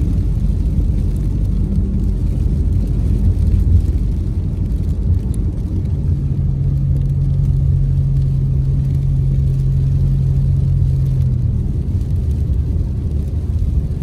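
A car driving, heard from inside the cabin: a steady low rumble of engine and road. A low steady hum comes in about six seconds in and stops a few seconds before the end.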